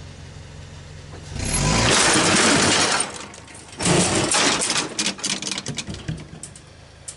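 Lawn tractor rolling down a board ramp off a pickup's tailgate onto gravel: about two seconds of loud rumbling and crunching. Then a loud clatter about four seconds in, as the ramp tips and drops, and scattered clicks and rattles that die away.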